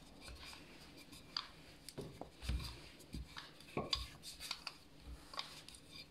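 Wooden rolling pin working a sheet of pastry dough on a stone countertop: faint, irregular clicks and knocks, with a few soft thumps.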